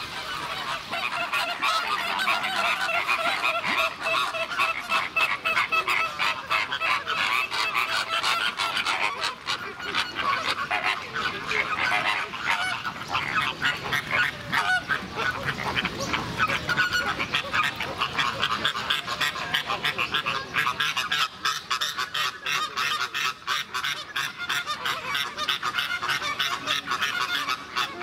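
A flock of birds honking and chattering without a break, many calls overlapping.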